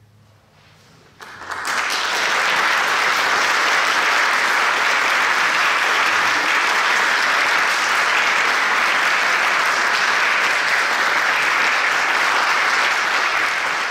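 Audience applauding. The applause breaks out about a second in, after a moment of quiet, and keeps up steadily.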